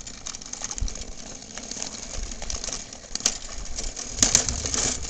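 A push lawnmower clattering and clicking as it is pushed along, with sharper clacks about three seconds in and again near the end.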